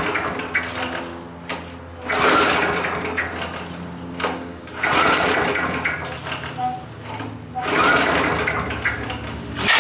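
Small lawn mower engine being pull-started over and over, about every three seconds: each yank spins it up with a short rising whine and a rapid chatter of firing that dies away again. Under the pulls runs a steady low engine hum.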